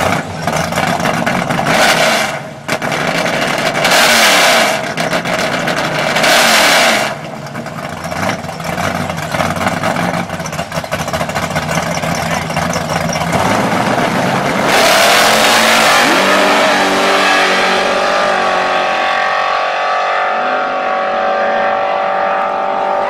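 Two drag race cars at the start line: engines revved hard three times in short bursts, then launched at full throttle about fifteen seconds in, the engine note changing through gear shifts as they pull away down the track.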